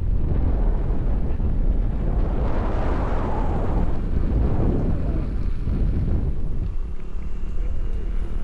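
Wind buffeting the microphone: a steady, heavy rumble that swells and eases.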